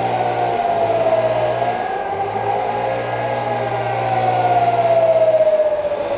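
E57 electromechanical civil-defence siren sounding a test alarm, its tone rising briefly and then sliding slowly down in pitch.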